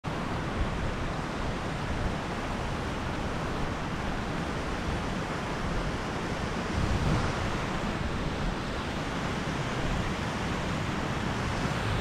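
Steady rush of a mountain stream and waterfall, with wind buffeting the microphone in low, uneven rumbles.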